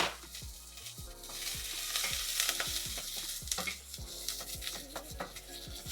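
Diced onions sizzling in hot olive oil in a pot as they are stirred, the utensil scraping and tapping against the pot in a run of short clicks every few tenths of a second.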